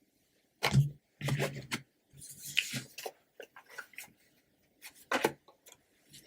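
Tarot cards being handled and slid over one another: a few short rustles and rubs with small taps and clicks.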